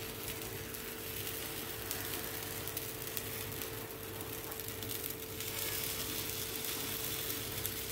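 Appe batter sizzling in the hot, oiled cavities of an appe pan as spoonfuls are dropped in, the hiss growing louder about five seconds in. A faint steady hum runs underneath.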